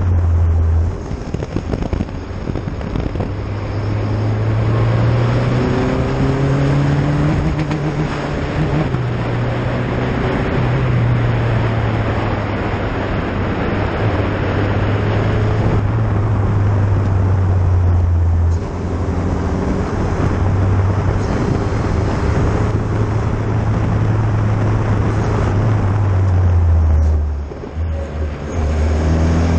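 Renault single-seater race car's engine heard onboard at speed, its note climbing and stepping as the driver changes gear, over a steady rush of wind and road noise. The engine note dips briefly about two-thirds of the way in, then drops sharply near the end into a few short choppy pulses before picking up again.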